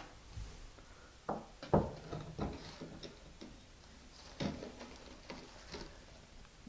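A blade scraping excess thin-set mortar off the back of a ceramic tile, with a string of irregular sharp taps and knocks as the tile and tool are handled.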